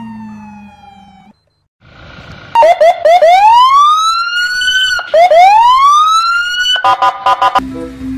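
Electronic police siren: a few short yelps, then two rising wails that each cut off abruptly, ending in a burst of rapid chirps.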